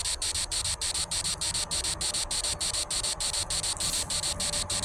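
Chorus of crickets or similar insects chirring in a steady, even pulse, about five pulses a second, high-pitched.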